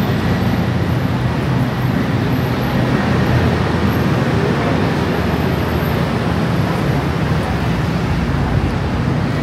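Steady road traffic noise: an even wash of engine and tyre sound with no single vehicle standing out.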